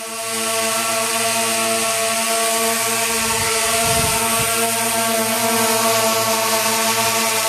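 DJI Phantom v1 quadcopter hovering close by, its four motors and propellers giving a steady multi-toned buzz with a hiss. A brief low rumble comes in about three seconds in.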